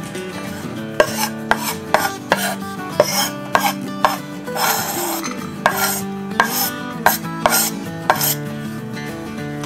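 Kitchen prep sounds: about a dozen sharp, irregular knocks with short rasping, scraping noises between them, starting about a second in and stopping shortly before the end. Soft acoustic guitar music plays underneath.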